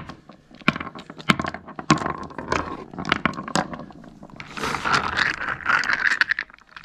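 Hard clam shells clicking and knocking against each other and onto wooden deck boards as grisette clams are picked out of a tub and checked one by one. From about four and a half seconds in, water splashes and swishes as a hand rummages through the clams in the tub.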